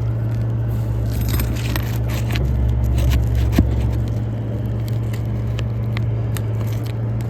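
A thin metal roofing pry bar scraping and clicking as it is worked under brittle asphalt shingles to reach the nails, with one sharp click about three and a half seconds in. A steady low hum runs underneath.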